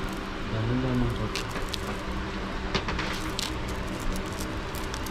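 Glass beads and small metal clasps on beaded tassels clicking and jingling as a hand sorts through them, over a steady low hum.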